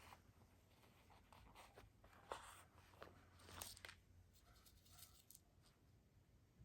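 Near silence with a few faint, soft rustling strokes, the clearest about two and three and a half seconds in: needle and thread being drawn through fabric during hand beading.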